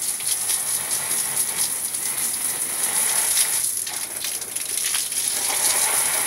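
Water from a garden hose spraying onto a split air conditioner's plastic mesh filter and splashing onto the ground below, a steady hissing spray, rinsing the dust off the filter.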